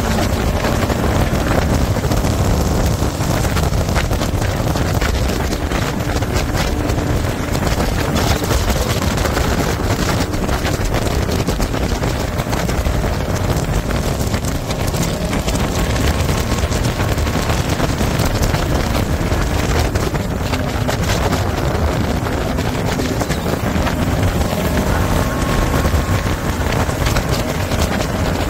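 Jet boat running at speed up a shallow river, its engine and water jet drowned in heavy wind buffeting on the microphone. Loud and steady throughout.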